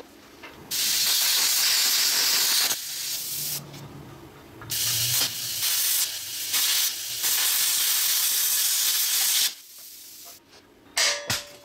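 Air plasma cutter hissing as it cuts through a steel mounting strut on a compressor tank, in a few long bursts with short breaks, stopping about two-thirds of the way in. Near the end come a few sharp hammer knocks on steel.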